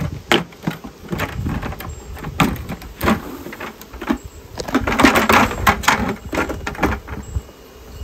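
Plastic bucket from a bee vacuum being tipped, shaken and knocked against a wooden hive box to dump the bees out: a run of knocks and rattles, loudest about five seconds in.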